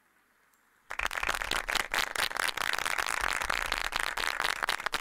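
Audience applauding, breaking out suddenly about a second in as dense, steady clapping.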